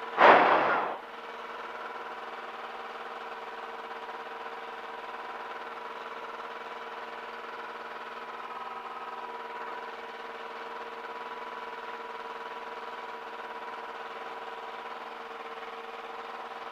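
Light aircraft engine running at a steady idle, heard through the headset intercom audio feed as a steady set of tones. A short, loud burst of noise comes right at the start.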